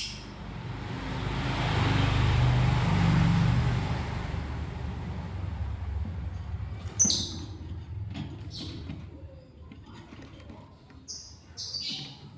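A passing vehicle swells and fades over the first few seconds. Lovebirds then give short, high chirps about seven seconds in and again twice near the end.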